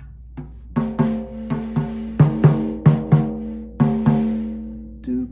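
A freshly tuned drum tapped with a drumstick about a dozen times in an uneven rhythm, starting about a second in. Each hit rings on with a clear, sustained pitch, the drum's tuning note of A.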